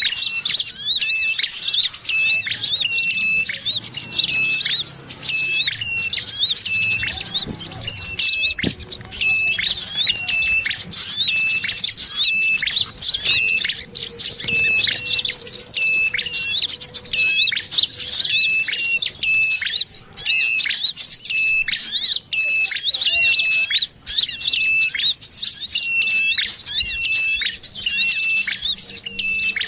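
Bird-lure recording of small songbirds: a continuous, dense, high-pitched rapid chattering (sogon chatter mixed with ashy tailorbird and sunbird calls), with a short clear note repeated a little more than once a second beneath it.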